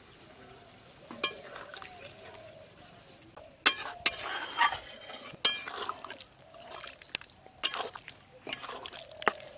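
Metal spatula stirring a wet chicken curry in a metal kadai, with sharp clinks and scrapes against the pan now and then and the gravy sloshing.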